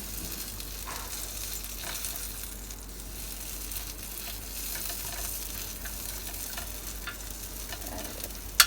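Egg and potato patty mixture sizzling steadily as it fries in oil in a hot pan, with a few faint ticks. A single sharp click near the end.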